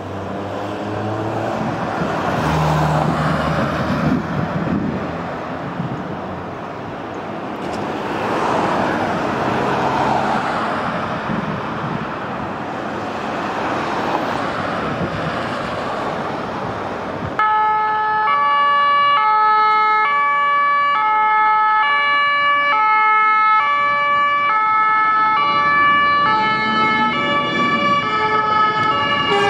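Road traffic passing with a rising and falling rush. About two-thirds of the way in, a fire engine's two-tone horns start suddenly and alternate high and low at an even pace as it pulls out on an emergency run.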